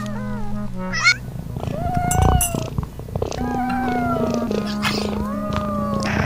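A few cat meows, with gliding pitch, over steady background music.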